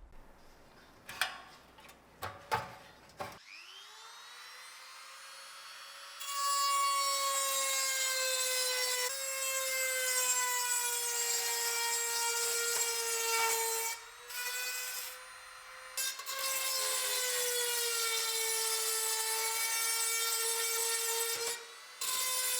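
A few knocks, then a small handheld power tool spins up with a rising whine. It then runs steadily against metal with a harsh rasping noise, likely abrading rust off the old pressed-steel truck body. The noise drops out briefly around the middle and again near the end.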